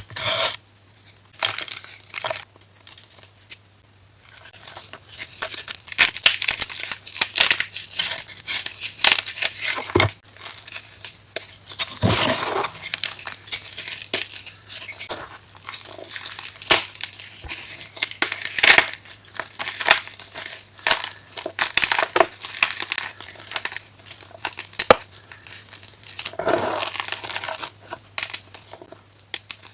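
Chalk being crunched and crumbled: dense, irregular crackling and snapping, with a few louder crunches spread through it. A faint steady hum runs underneath.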